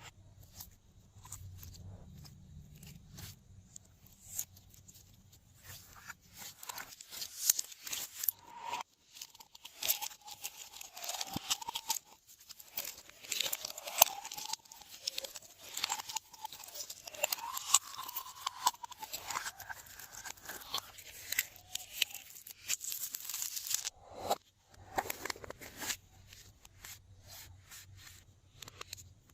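Glossy slime being squished, stretched and folded by hand: dense sticky clicks and crackles, with wavering squeaks of air pressed through the slime in the middle stretch.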